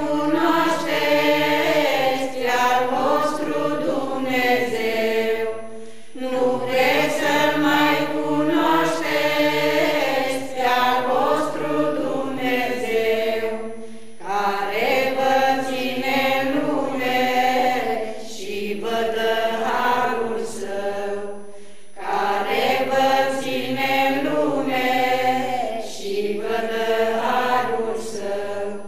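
Mixed choir of women and men singing unaccompanied, in long phrases of about eight seconds with short breaks between them.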